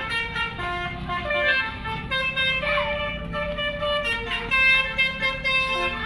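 A bus's multi-tone Basuri telolet horn playing a tune, one held note after another in stepwise changes of pitch, over a low steady noise. A brief falling squeal cuts across it about halfway through.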